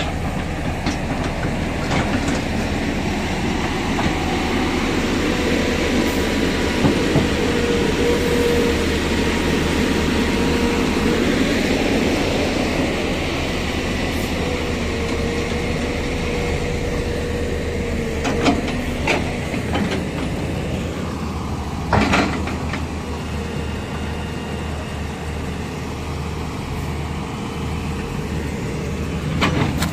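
Hitachi hydraulic excavator running, its diesel engine steady under a hydraulic whine as the boom and bucket move. Two sharp knocks come about two-thirds of the way through.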